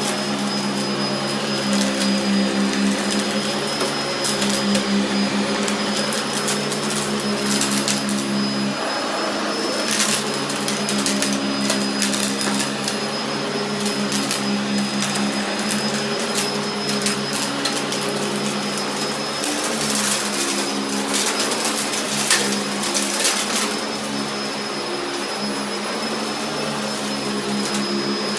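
Sanitaire upright vacuum running steadily on carpet: a constant motor hum with a thin high whine. Scattered bursts of sharp clicks and rattles, thickest about a third of the way in and again about two-thirds in, as debris from the mess is picked up.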